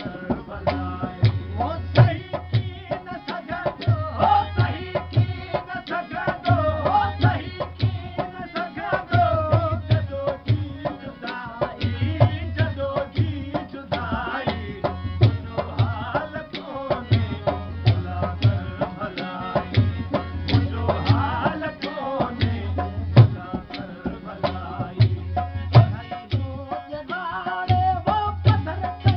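Sindhi Sufi devotional song: male voices singing to a harmonium, over a hand drum beating a steady repeating rhythm.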